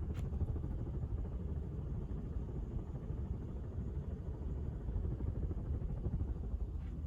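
Harbor Breeze Builder's Best ceiling fan running on high speed: a steady low rumble.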